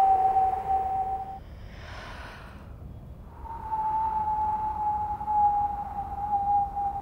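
A single steady, nearly pure high tone, like a whistle, held with a slight waver. It breaks off about a second and a half in for a breathy hiss, then comes back a little higher and slowly sinks in pitch.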